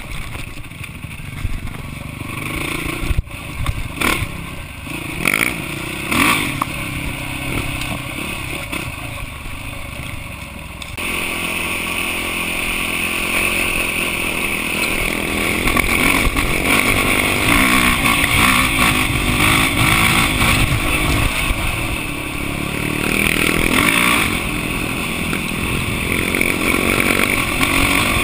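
Dirt bike engine running under the rider, heard from a camera mounted on the bike, with a few sharp knocks and clatter in the first part. About eleven seconds in the sound jumps louder and stays that way, the engine pulling harder along the trail.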